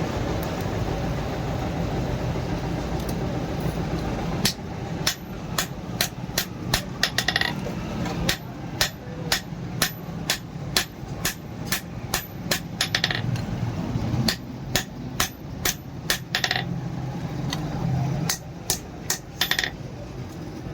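Hand hammer striking leaf-spring steel in a run of sharp, ringing blows, about two a second, starting a few seconds in and broken by a couple of short pauses. A steady low hum is under the first few seconds.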